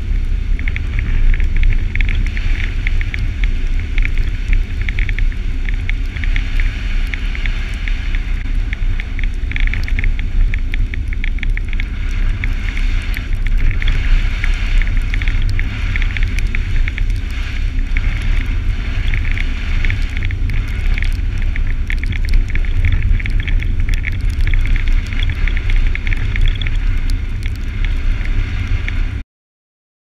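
Jeep Wrangler driving on a slushy, snow-covered road: a steady low rumble of wind and road noise with a dense crackling hiss of tyres through slush. The sound cuts off abruptly near the end.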